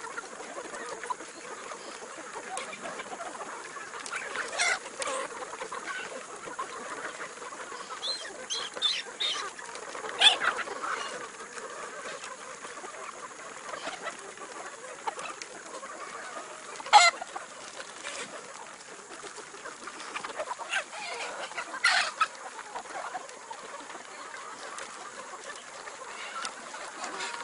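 Chickens clucking in a chicken coop, with scattered short calls over a steady background murmur of the flock; the loudest calls come about ten and seventeen seconds in.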